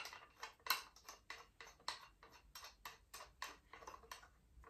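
Metal rivet die being screwed by hand into the ram of a rivet-setting hand press: a quick run of light metal clicks, about four or five a second, stopping near the end.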